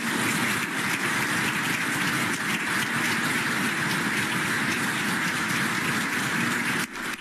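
Audience applauding steadily, stopping suddenly near the end.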